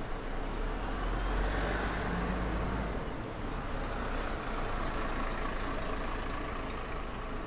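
A city bus driving past close by and pulling away. Its engine's low rumble is loudest over the first three seconds, then eases under the general street traffic noise.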